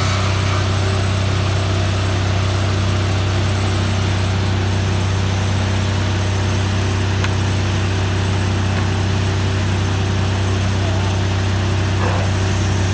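Sawmill engine running steadily with a constant low hum.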